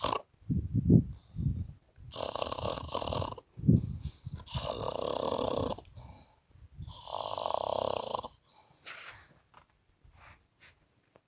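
Heavy snoring: three long, noisy snoring breaths about two and a half seconds apart, with shorter low snorts in between.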